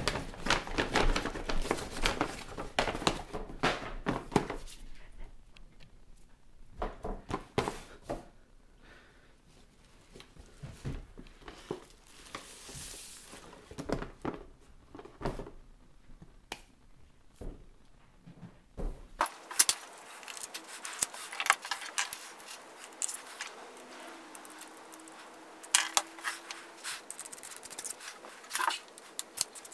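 Paper gift bag and tissue paper rustling and crinkling in bursts as presents are lifted out and boxes are handled. About nineteen seconds in the sound changes abruptly to clicks and taps of a shotgun microphone and its parts being handled on a wooden workbench.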